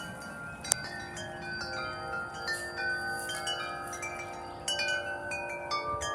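Several wind chimes ringing together, their tuned tubes struck irregularly so that many tones overlap and ring on. There is a sharp click just under a second in, and a flurry of new strikes about two-thirds of the way through.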